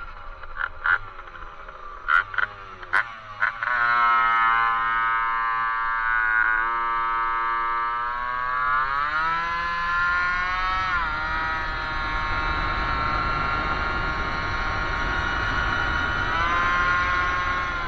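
Two-stroke engine of a 1978 Honda Hobbit moped with a Stage6 Racing R/T MK1 kit under way. A few short, sharp bursts in the first few seconds, then a steady buzzing drone whose pitch climbs about nine seconds in as it speeds up, and rises again near the end.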